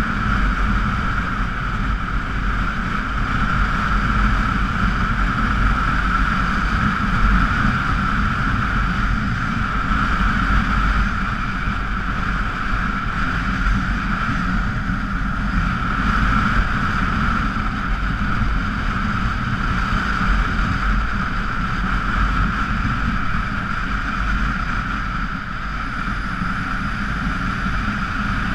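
Onboard sound of a Honda Africa Twin XRV750's V-twin engine running steadily while riding, mixed with steady wind rush over the microphone.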